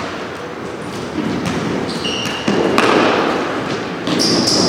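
Futsal ball being kicked and bouncing on a wooden sports-hall floor, the sharp knocks echoing in the hall, with short high squeaks of sneakers on the floor.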